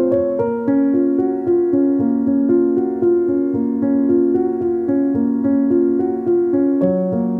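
Piano music: a melody of held notes over chords, the notes changing about every half second.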